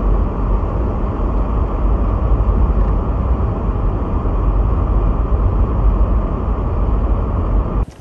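Steady low rumble of a car driving on a snow-covered road, heard from inside the cabin; it cuts off suddenly near the end.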